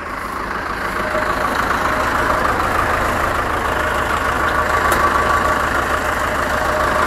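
Farm tractor's diesel engine idling steadily, growing louder over the first two seconds.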